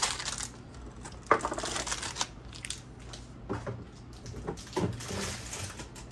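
Plastic rustling and crinkling as small items are handled and set into hard plastic wall-mounted parts bins. There is a sharp knock about a second in and a few lighter knocks a few seconds later as things land in the bins.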